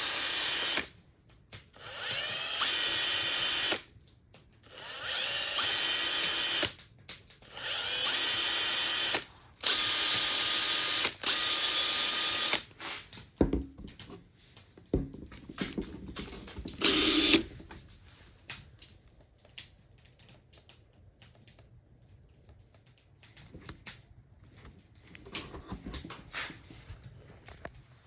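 Makita TP131D cordless 4-mode impact driver run in about six trigger bursts of a few seconds each, the motor spinning up at the start of some. After them come scattered clicks and knocks of the tool being handled, with one more short burst of the motor.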